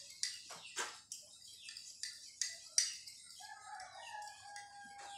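Metal spoon beating an egg yolk mixture in a ceramic mug, quick clinking strokes about two to three a second. About three seconds in, a rooster crows in the background, one drawn-out call of about two seconds.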